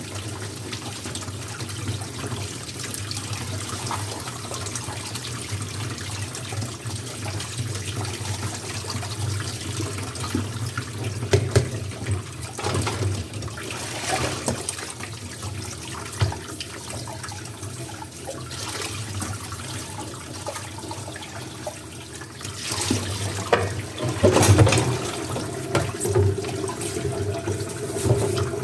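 Tap water running steadily into a kitchen sink while dishes are washed, with scattered knocks and clinks of dishes. The splashing and clatter grow louder about three-quarters of the way through.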